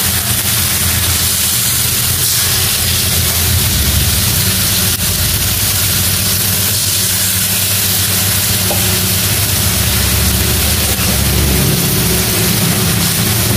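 Giant gourami steaks frying in a pan with fermented soybean sauce spooned over them: a steady sizzling hiss over a low hum.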